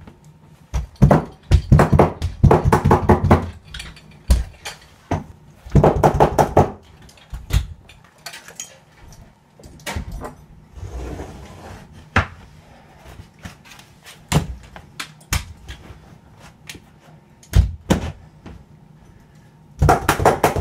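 Power carpet stapler firing in quick runs of sharp clacks as stair carpet is fastened to the treads, with single knocks in between.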